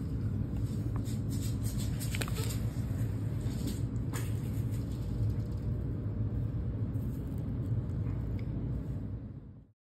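Steady low rumble with a few faint clicks, cutting off suddenly near the end.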